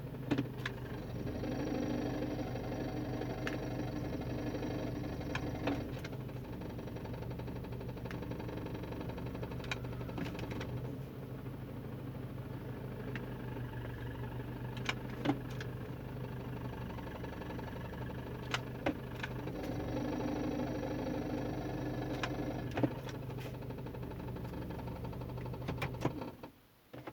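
A 2007 BMW 318i running with a strange noise that the owner puts down to its automatic transmission: a steady hum with higher tones that grow louder twice, about a second in and again around twenty seconds in, with scattered light clicks. The sound drops away near the end.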